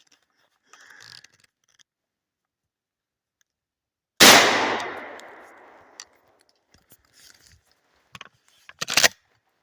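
A single loud gunshot about four seconds in, its report echoing away over a second or so, followed by a few sharp clicks near the end.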